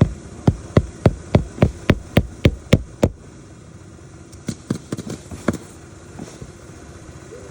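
Hammer driving roofing nails into a 3-tab asphalt shingle: a quick run of about a dozen even strikes, roughly three or four a second, then a pause and a few lighter taps about halfway through.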